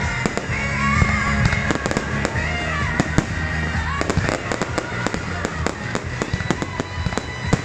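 Aerial fireworks bursting: a rapid run of sharp bangs and crackles, several a second, over music with a steady bass line.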